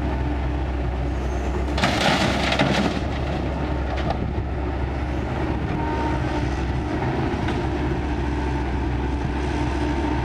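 Kobelco excavator's diesel engine running steadily under work. About two seconds in, a louder rushing clatter lasts about a second.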